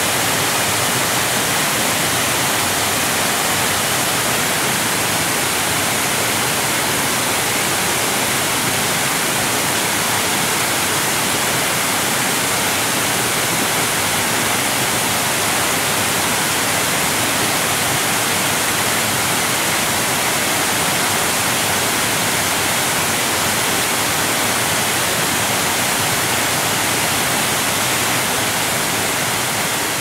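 Large waterfall: a steady, even rush of falling water with a strong hiss.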